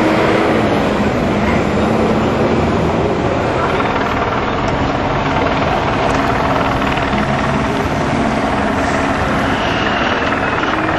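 Steady, loud engine noise with a faint pitched hum whose pitch falls slightly over the first couple of seconds.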